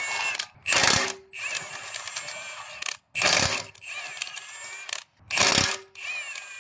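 Milwaukee cordless impact wrench hammering on a rusted rear hub nut in three short, loud bursts, with the tool's motor running more quietly between them.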